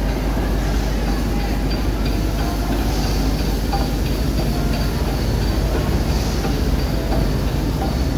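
LMS Stanier Class 5 'Black Five' steam locomotive 45231 rolling slowly past along the platform line, a steady loud rumble of the engine and its wheels on the track.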